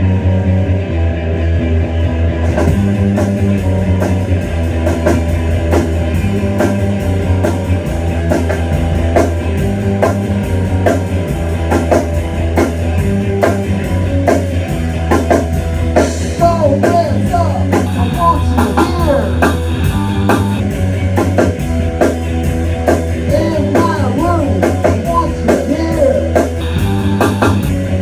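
A rock band playing live in a rehearsal room: electric guitar, bass guitar and drum kit. The drums and cymbals come in about two and a half seconds in, over guitar and bass that are already playing.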